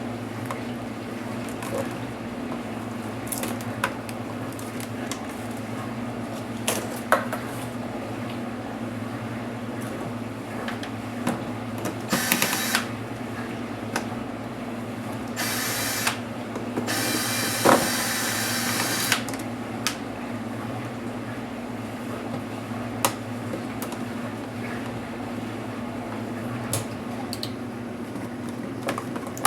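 Small clicks and taps of tools, screws and plastic casing parts as an HP DV4 laptop is taken apart by hand, with a few short scraping or rustling noises past the middle, the longest lasting about two seconds. A steady low electrical hum runs underneath.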